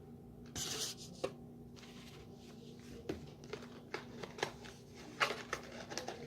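Light handling of packaging and utensils: a short rustle about half a second in, then scattered small clicks and taps, over a faint steady hum.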